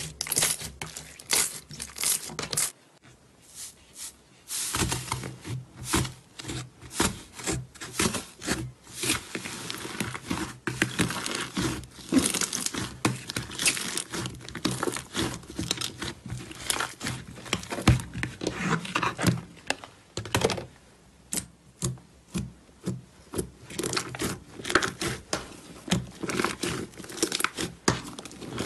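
Hands squishing, folding and squeezing slime: irregular sticky crackles and pops, with a short quiet pause about three seconds in, then dense runs of crackling.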